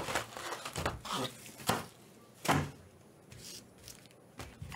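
Cardboard box of trading-card packs and foil-wrapped packs handled on a table: several sharp knocks, the loudest about halfway through, with light rustling between them.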